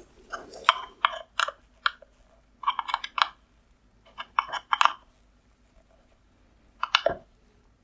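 Sharp little clicks and scrapes of a metal hook tool prying at the clips that hold an LED circuit board to a metal reflector bowl, in several short clusters, with a duller knock near the end.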